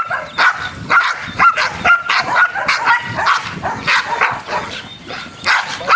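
Two protection-trained dogs barking rapidly and continuously, aggressive guard barking at a decoy in a bite suit closing in on them.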